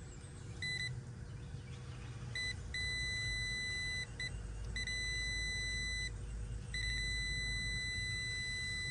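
Electronic test meter beeping at one steady high pitch: a few short chirps, then long continuous tones with short gaps between them. A low steady hum runs underneath.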